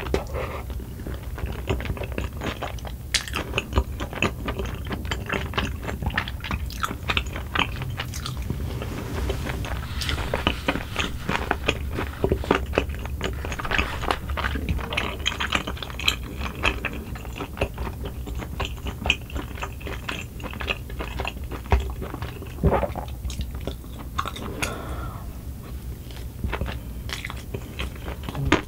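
Close-miked chewing with wet mouth clicks and some crunching: soft, chewy rice cakes in cream sauce and rice with crunchy pork cartilage being eaten.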